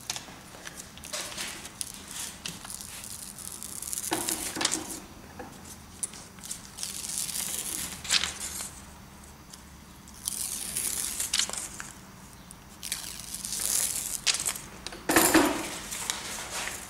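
Backing paper being peeled off strips of two-sided tape on a paper print, crackling and crinkling in several bursts, the loudest near the end.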